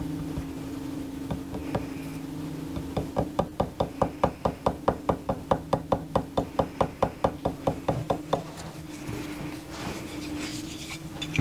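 Rapid, even wooden knocking, about five knocks a second for some five seconds, as a rosewood plane tote is tapped against a wooden block, over a steady low workshop hum.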